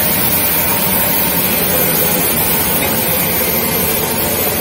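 Coin-operated Iseki rice milling machine running at work, a loud, steady mechanical rushing noise of its motor and the grain being milled.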